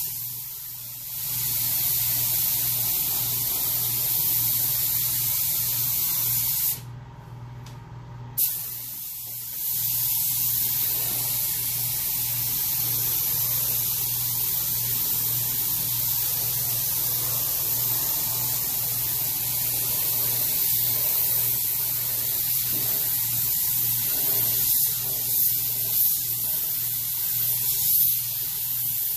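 Air-fed gravity-feed paint spray gun hissing steadily as it sprays the van's interior panels. The spray stops for about two seconds some seven seconds in, then starts again.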